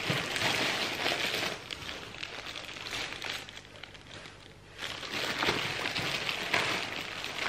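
Plastic bags and packing crinkling and rustling as hands dig through a cardboard box of bagged costume jewelry and beads. About halfway through it eases off for about a second, then picks up again.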